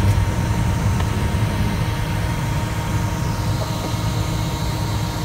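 Floatplane's propeller engine droning steadily, heard from inside the cabin as the plane runs across the water after touchdown, with a deep rumble and a faint steady whine above it.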